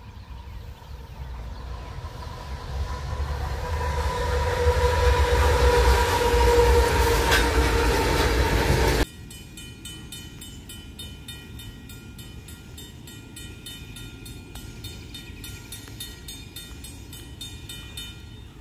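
Diesel freight locomotive air horn sounding one long steady blast over low engine rumble, growing louder as the train nears, cut off abruptly about halfway through. After that, distant and much quieter train sound with a faint, fast, regular high ringing.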